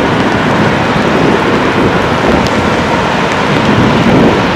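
Four KiwiRail DL-class diesel-electric locomotives approaching under power, a loud, steady rumble that grows a little louder near the end as they draw closer.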